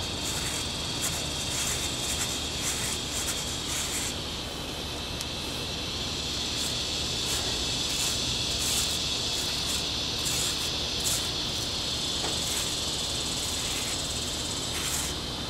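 Repeated short, scratchy rasps of damp black powder being rubbed by hand through a stainless steel mesh strainer, over a steady high-pitched insect drone.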